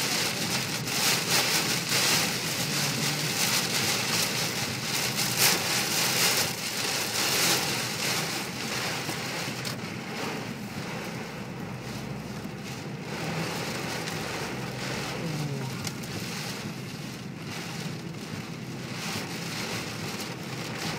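Heavy typhoon rain pouring, in surges over the first several seconds, then easing a little to a steady downpour.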